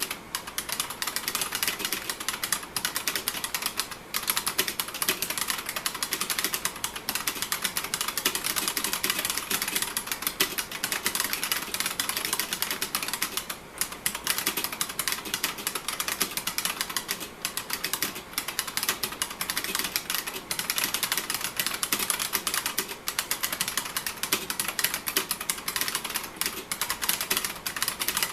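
IBM Model M2 buckling-spring keyboard being typed on fast and steadily, its keys giving a dense stream of loud clicks with a few brief pauses.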